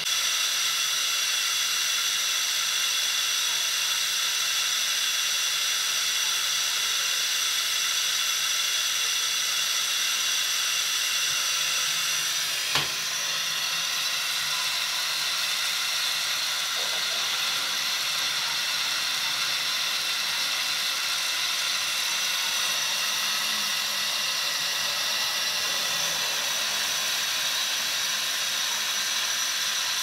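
Milk tea boiling in a saucepan: a steady hiss, with one sharp click about thirteen seconds in.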